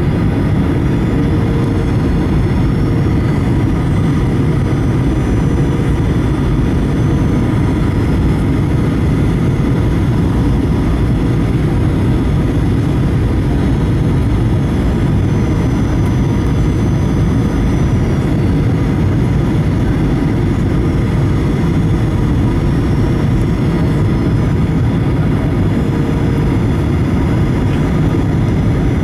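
Inside the cabin of a Boeing 737-800 on approach: steady roar of the CFM56-7B engines and airflow, with faint steady whining tones over it.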